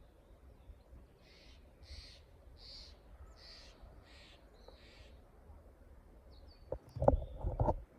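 A bird calling a series of about six short, harsh calls at an even pace, over faint outdoor background. Near the end come a few loud, low thumps.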